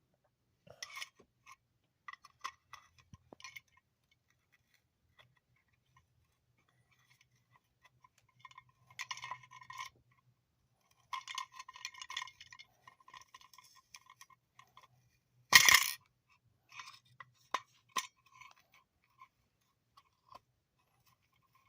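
Metal tools and motor parts clinking and scraping in irregular short runs, with one louder clank about two-thirds of the way through.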